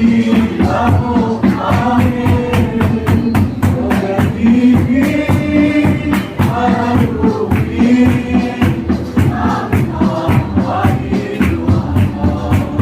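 Congregational gospel singing with a choir of voices over a steady, driving beat of drums and shaken percussion.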